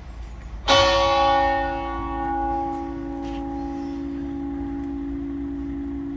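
A single stroke of a church bell about a second in, tolling for a funeral, its tone ringing on and slowly dying away.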